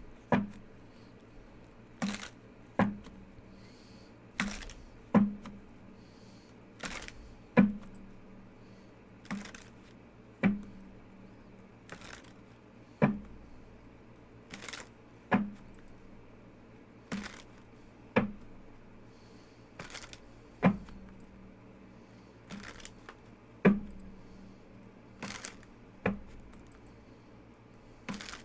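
Tarot cards being handled and laid down on the table one at a time. There are about twenty sharp snaps, each with a short thud, coming every second or two and often in pairs, over a faint low hum.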